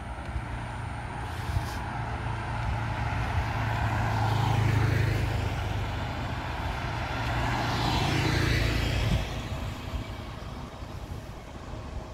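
Motor vehicles passing close by on a road. Engine and tyre noise swells and fades twice, peaking about halfway through and again about 8 seconds in, over a steady low engine hum, then drops away sharply just after 9 seconds.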